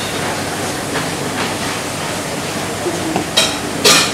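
Steady rushing kitchen background noise, with two sharp clinks of kitchenware on a china plate a little past three seconds in and half a second later, the second louder and ringing.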